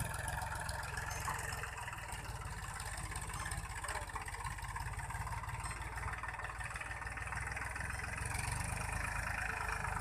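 Farm tractor's diesel engine running steadily while it pulls a tined cultivator through ploughed soil.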